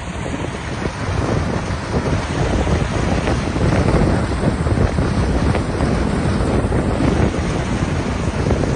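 Heavy wind buffeting the microphone over the steady running of a Kubota tracked combine harvester cutting rice.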